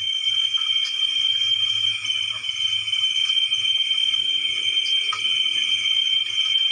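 Steady chorus of night insects, crickets, a continuous high-pitched trill without a break.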